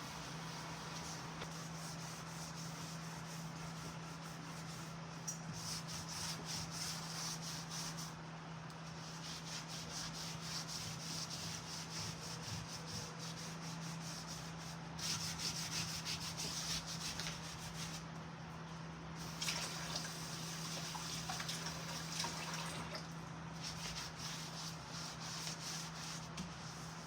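Hand-scrubbing a kitchen surface: quick back-and-forth rubbing strokes in stretches of a few seconds with short pauses between, over a steady low hum.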